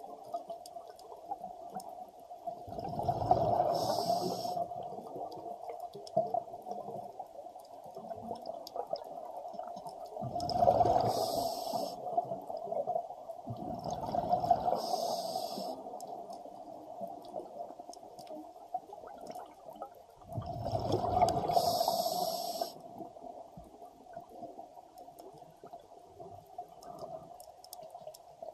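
Scuba diver breathing through a regulator underwater: four breaths, each a burst of bubbling rumble with a hiss, spaced several seconds apart over a steady faint hum.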